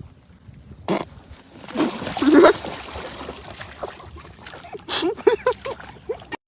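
Water splashing at the edge of a lake as a husky puppy steps into the shallows. A short vocal sound comes about two seconds in, and a quick run of short pitched vocal sounds follows near five seconds.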